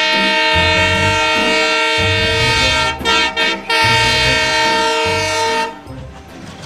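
Horn of an approaching diesel locomotive sounding a long blast, broken by a few short toots about three seconds in, then held again until it stops about a second before the end, leaving a fainter rumble of the train.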